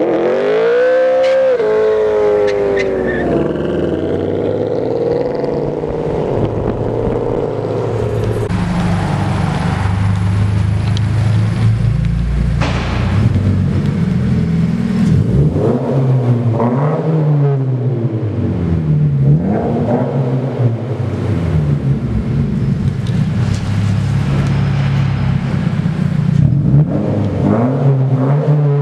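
Sports-car engine accelerating hard, its pitch climbing steeply over the first two seconds. Later a yellow Toyota GT86's flat-four engine with aftermarket exhaust is blipped several times, each rev rising and falling, and then settles into a steady idle near the end.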